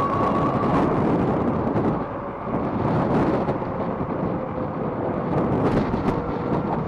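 Wind buffeting the microphone of a chest-mounted camera on a moving e-bike: a loud, uneven rush of noise that swells and dips. A faint steady electric motor whine fades out about a second in.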